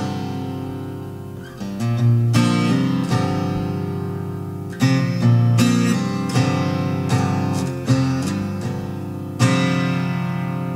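Instrumental music of guitar chords, each struck and left to ring and fade, with a new chord every couple of seconds.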